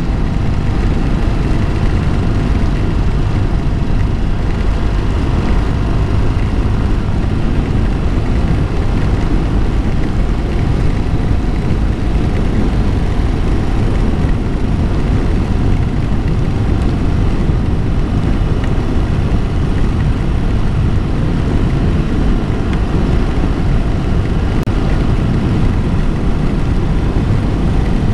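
1982 BMW R100RS's air-cooled flat-twin engine running steadily at cruising speed, under a constant rush of wind noise over the microphone.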